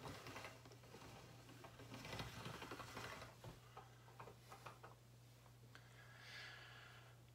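Near silence: faint scattered soft ticks and handling noises from polymer clay being worked by hand, over a steady low hum.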